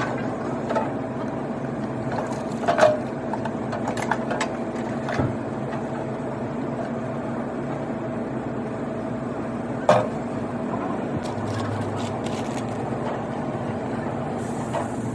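A steady mechanical hum with a faint constant tone, broken by a few sharp clicks, one about three seconds in and one about ten seconds in.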